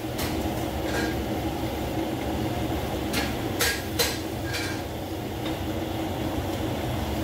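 Gas wok burner running with a steady low rumble under a wok of water spinach being stir-fried, while a metal ladle clinks and knocks against the wok a few times, the loudest strike about four seconds in.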